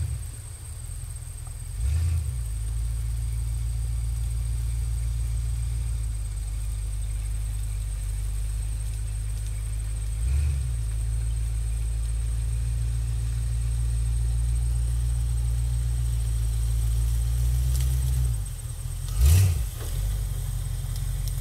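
Engine of a homemade Halo Warthog replica off-road vehicle running steadily at low pitch while it drives through tall grass. It revs up briefly three times: about two seconds in, around the middle, and most loudly near the end.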